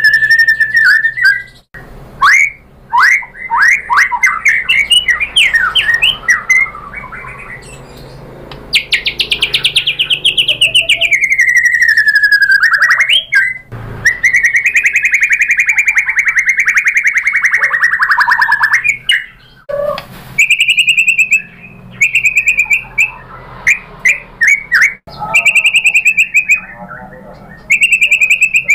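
White-rumped shama singing a loud, varied song of quick sweeping notes, a falling run of notes, a long buzzy trill held for several seconds, and then short phrases repeated many times.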